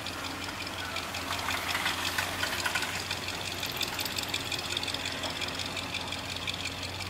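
Engine of an old square-body crew-cab pickup truck running at a low idle as the truck crawls along. It makes a steady low hum with a fast ticking clatter over it.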